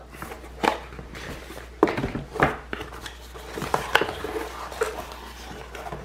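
A cardboard retail box being opened by hand: light scraping and rustling with a handful of sharp clicks and taps as the lid flap is worked loose and lifted.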